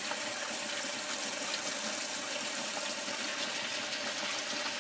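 Water running steadily through the cooling passages of a Ford 351 Windsor V8 block with the water pump off, pouring and splashing out of the open passenger-side pump port and the heater outlet.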